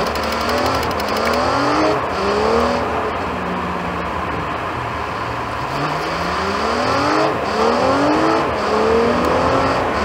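Car engine heard from inside the cabin, pulling away and revving up through the gears: the pitch rises, drops at each gear change and rises again, once early on and again in a longer run near the end, over steady road noise.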